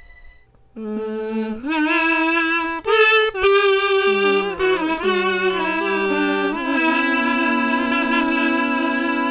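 Intro theme music for the title sequence: it starts abruptly about a second in, plays a melody of held notes that move in pitch, and settles into one long held chord in the second half.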